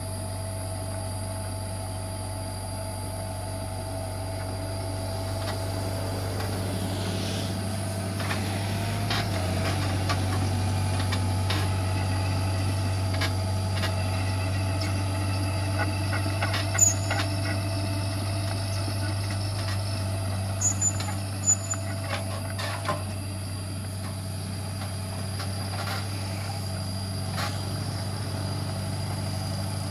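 Komatsu PC75 mini excavator's diesel engine running steadily under working load, with a steady whine over a low hum, growing louder through the middle as the arm and bucket move dirt. A few sharp knocks come in the middle.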